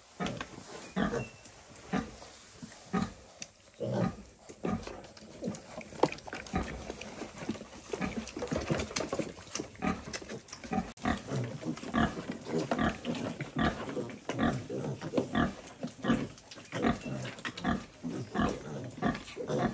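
A sow and her piglets grunting as the piglets suckle: a steady run of short grunts that becomes quicker and busier about eight seconds in.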